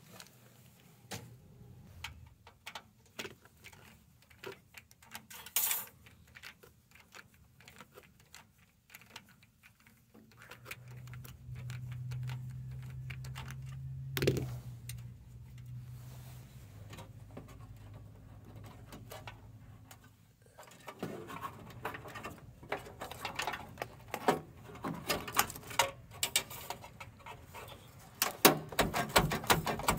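Irregular clicks, taps and rattles of a desktop computer case being taken apart by hand: a screwdriver on the power-supply screws, then a quicker run of louder clicks near the end as the power-supply cables and connectors are pulled. A low steady hum sits under the clicks for several seconds in the middle.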